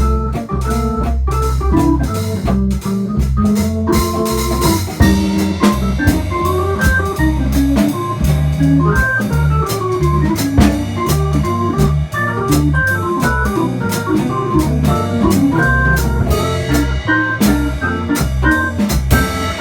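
Organ trio playing jazz: organ melody lines over a bass line that moves note by note, with drum strokes keeping time.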